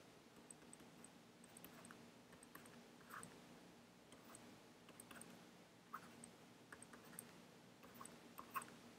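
Near silence, with faint, scattered small clicks and taps of a stylus writing on a drawing tablet.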